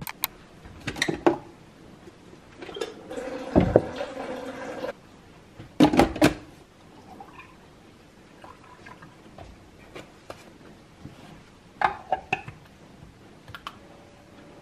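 Clinks and knocks of kitchen things being handled and set down on a countertop, with milk poured from a carton into an electric milk frother jug. Near the end the frother is switched on and a faint steady hum begins.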